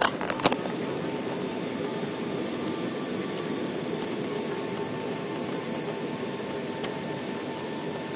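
Steady rushing noise of an airliner's jet engines and airflow heard inside the passenger cabin as the plane rolls along the runway after touchdown, with a few sharp knocks in the first half-second.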